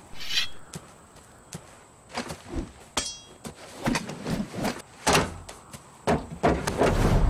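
Film fight-scene sound effects: a swish, then a metallic clink that rings about three seconds in, followed by a string of knocks and thuds as a staff weapon is handled, with a low rumble coming in near the end.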